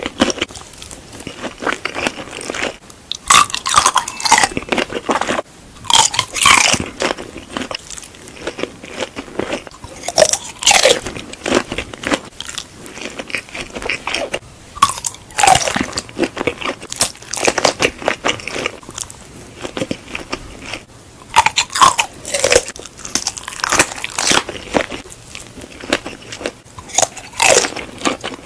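Close-miked eating: crunchy bites into food every few seconds, with chewing between them.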